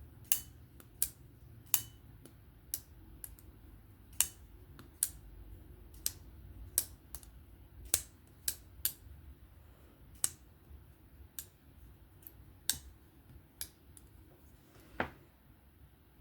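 A button-lock folding knife being opened and closed over and over, giving sharp irregular clicks, some in quick pairs, as the blade snaps into and out of its lock while the pivot action is tested.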